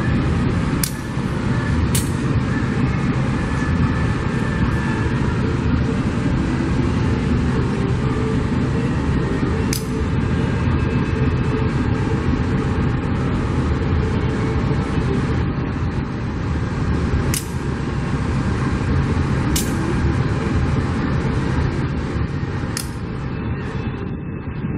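Freight train of fuel tank wagons rolling past behind a diesel locomotive: a steady, loud rumble of wheels on the rails, broken by about six sharp clanks at irregular moments. The sound thins out a little near the end.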